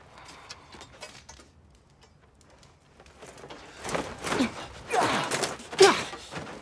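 Sword-fighting: quiet scuffs and small clicks, then from about four seconds in a loud flurry of fast movement and swishes, with short grunts of effort that fall in pitch.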